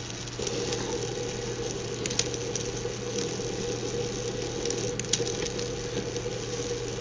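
Small fischertechnik electric motor running under PWM drive from the Arduino, a steady hum with a constant whine near 500 Hz over light gear rattle. The whine drops out briefly just as the sound begins.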